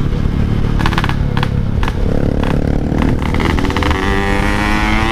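Yamaha RX-King 135 cc two-stroke motorcycle engine running under way, then revving up with its pitch rising over the last two seconds.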